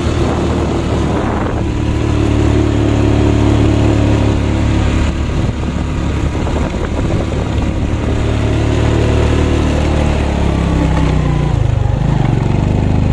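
Motorcycle engine pulling steadily under load up a steep hill, with a change in engine pitch near the end.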